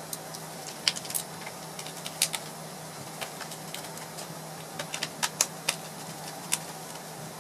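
Screwdriver and fingers clicking and tapping on the plastic underside of an HP Compaq Presario CQ57 laptop as the screws in its battery bay are taken out: irregular sharp clicks, several close together about five seconds in, over a steady low hum.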